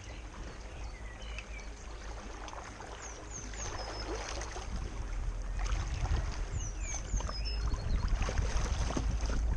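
Kayak gliding on a shallow river: water trickling and splashing around the hull, with a low rumble of wind on the microphone that grows louder toward the end. Short, high, descending bird chirps come in quick sets of three, about three seconds in and again near seven seconds.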